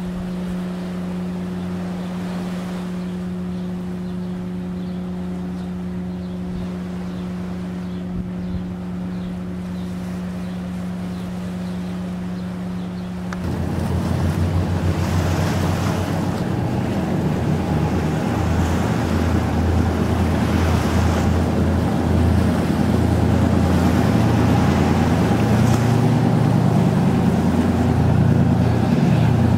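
Steady low drone of a ship's engine carried over the water, with light surf beneath it. About thirteen seconds in it gives way to louder waves washing over rocks and wind rumbling on the microphone.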